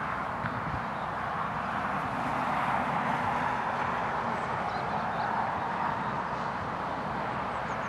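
Steady rushing roar of the Severn bore, the tidal wave surging up the river, swelling a little midway, with a few faint bird chirps.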